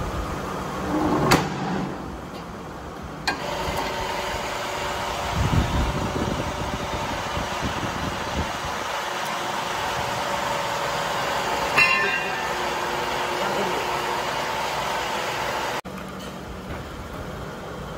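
Hydraulic press machinery running with a steady hum and whine, with sharp metallic knocks about a second in, around three seconds in and near twelve seconds. The sound drops off abruptly a couple of seconds before the end.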